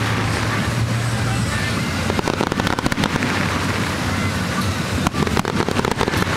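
Aerial fireworks bursting and crackling, with dense runs of rapid crackles about two seconds in and again about five seconds in, over background voices.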